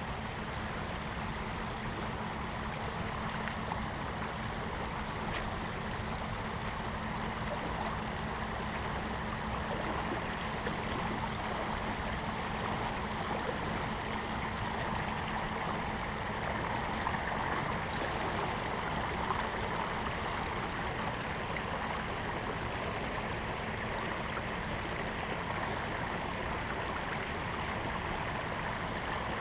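Shallow rocky stream flowing: a steady, even rush of water running over rocks.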